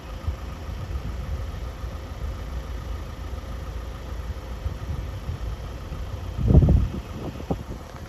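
Diesel train approaching slowly, its engine a steady low rumble. About six and a half seconds in, a short gust of wind hits the microphone.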